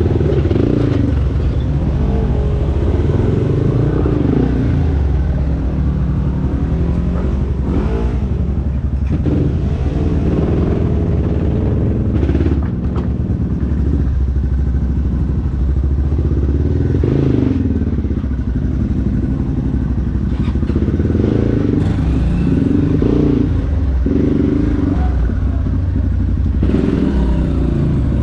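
Trail dirt bike's single-cylinder engine running and revving, its pitch rising and falling again and again, with occasional clatter and knocks.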